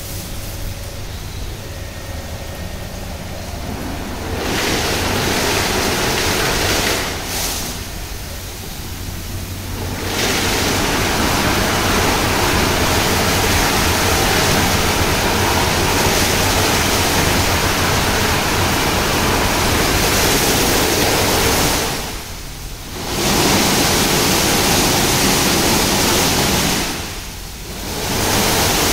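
Tammermatic T700 Turbo rollover car wash in its brush-wash stage: rotating brushes and water spray washing over the car, a steady rushing hiss over a low machine hum. It grows louder about 4 seconds in and again about 10 seconds in, with two short dips near the end.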